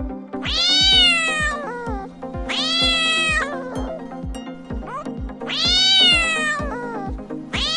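Cat meowing in long, drawn-out calls about a second each, three in a row with a fourth starting near the end, over background music with a steady thumping beat.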